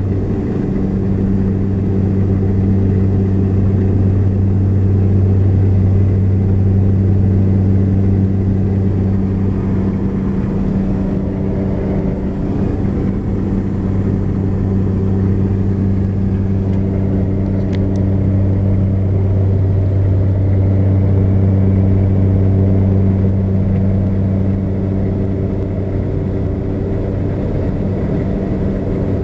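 Propeller airplane in cruise, heard from inside the cabin: a steady engine and propeller drone with a low hum and evenly spaced higher tones over rushing air noise.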